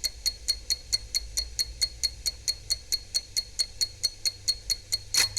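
Kienzle 606C electromechanical clock movement running, its lever escapement ticking fast and evenly at about five ticks a second, with one louder click near the end.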